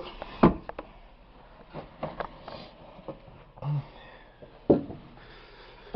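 A few sharp knocks and shuffles of someone climbing down into a cramped crawl space, about one every second or two, with a brief low voice sound, like a grunt, near the middle.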